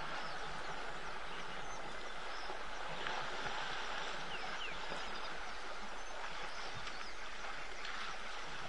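Steady outdoor ambience: an even hiss, with a few faint short chirps.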